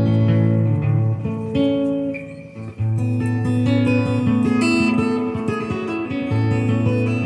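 Guitar chords and notes played through a Multivox tape echo unit, with slapback repeats, easing off briefly about two and a half seconds in. The owner says the tape isn't running over the heads as it should, which the non-original tape probably makes worse.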